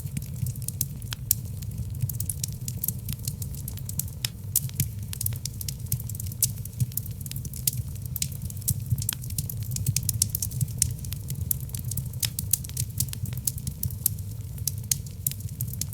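Logs burning in a wood fireplace: a steady low sound of the flames under frequent, irregular sharp crackles and pops.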